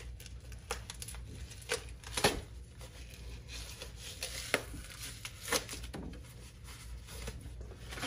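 Cardboard box and packing being pulled and torn open by hand: soft crinkling and rustling broken by a dozen or so irregular sharp snaps and clicks.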